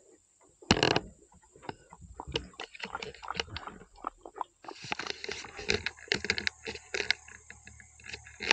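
Black leopard lapping water from a steel bowl: a quick, uneven run of small wet clicks.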